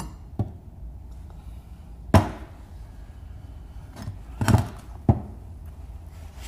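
Heavy welded steel drill-press base plate being handled on a wooden workbench: a few sharp knocks and clanks as it is set down and turned over, the loudest about two seconds in and a short cluster around four and a half seconds.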